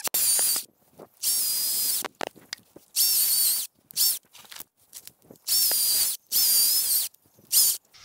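Greenworks 40-volt cordless electric chainsaw cutting through a fallen pine limb in about seven short bursts, each under a second. Each burst is a high motor-and-chain whine that wavers in pitch as the chain bites, then stops dead before the next.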